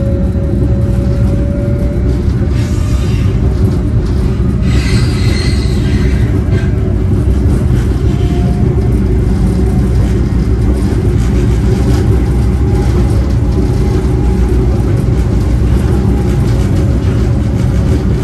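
Brookville Liberty streetcar in motion, heard from inside the car: a steady low rumble of wheels on rail with a faint motor whine, and a brief rushing noise about five seconds in.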